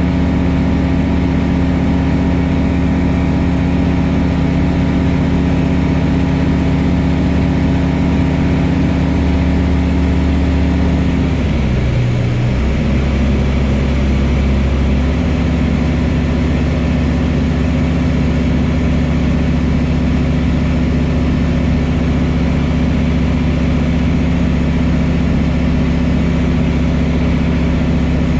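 Pipistrel Virus light aircraft's Rotax 912 flat-four engine and propeller droning steadily in cruise, heard from inside the cockpit. The pitch dips briefly about twelve seconds in and settles again by about fifteen seconds.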